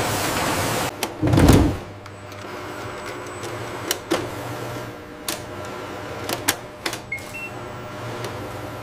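Assembly-line machine sounds. A hiss cuts off about a second in and is followed by a low whoosh-thump. Then comes a steady machine hum with scattered sharp clicks and two short high electronic beeps in quick succession late on.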